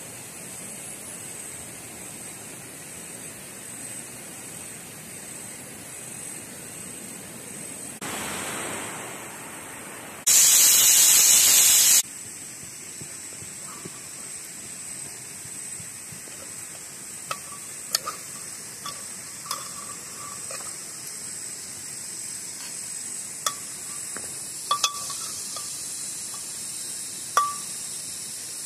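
A steady high hiss of outdoor background noise. About ten seconds in comes a loud rushing noise lasting about two seconds. In the second half there are light metal clinks and taps as a spoon knocks against a cooking pot while meat curry is served.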